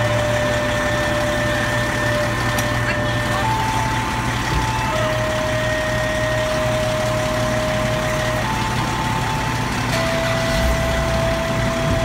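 Fire engine's diesel engine idling steadily, with a held electronic tone over it that steps between a higher and a lower pitch every one to three seconds.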